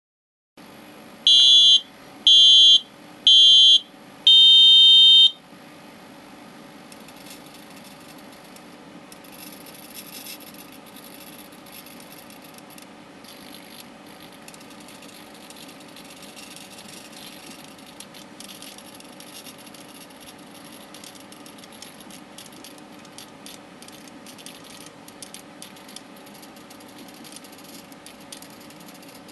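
Four electronic beeps: three short ones about a second apart, then a longer final beep, like a start countdown. Then the small hobby servos of the laser-guided pan-tilt mirror mount run quietly over a steady low hum, with faint intermittent whirring and scratching as they reposition the mirror.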